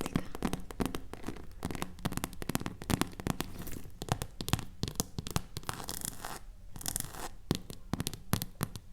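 Close-up ASMR tapping and scratching on objects: many quick, irregular taps, with short scratchy rustles a little after the middle.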